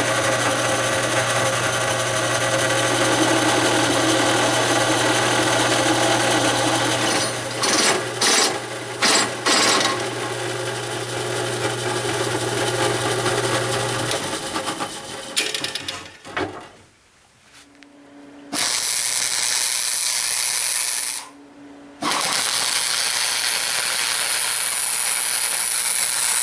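A drill press runs with a stepped drill bit cutting through steel plate: a steady motor hum under the grinding of the cut, with a few short breaks, before the motor winds down. After a short quiet, an electric arc welder crackles and hisses in two runs with a brief stop between them.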